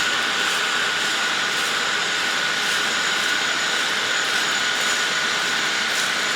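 John Deere X9 1100 combine harvester running steadily while harvesting barley: an even rushing machine noise with a steady high whine over it.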